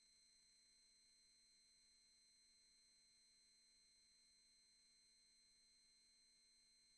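Near silence: only a faint, steady electronic whine made of a few constant tones, with no other sound.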